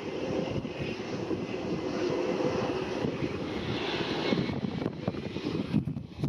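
The Pratt & Whitney Canada PW306C turbofan engines of a Cessna Citation Sovereign business jet running as it comes in to land: a steady jet whine and rush over gusting wind on the microphone.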